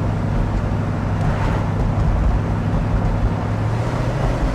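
Ford 428 Cobra Jet V8 of a 1969 Mustang Shelby GT500 running steadily while driving, heard from inside the cabin, its note shifting slightly about four seconds in.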